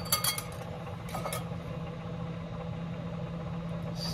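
Microwave oven running with a steady hum, with a few clinks of a wire whisk against a glass bowl early on. Near the end there is a click and the hum winds down, falling in pitch, as the microwave stops.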